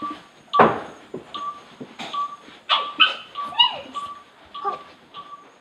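Short high electronic beeps repeating about two to three times a second. A loud rustling thump comes about half a second in, and a pet gives a brief whimper that falls in pitch about three and a half seconds in.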